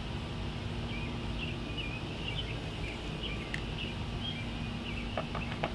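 Steady low outdoor background rumble with small birds chirping: short, quick chirps through the middle seconds. A few light clicks come near the end.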